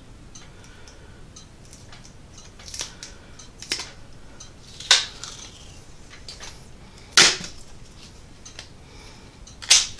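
Duct tape being pulled off the roll and torn: several short, sharp rips a second or more apart, the loudest about five, seven and nearly ten seconds in.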